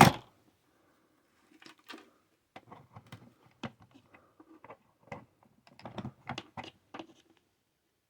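Scattered light clicks and taps of hands handling a plastic power strip and its plug, irregular and starting about a second and a half in.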